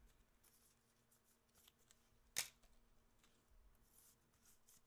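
Near silence with faint handling ticks and one short sharp click about halfway through, from trading cards being handled and slipped into a rigid plastic toploader.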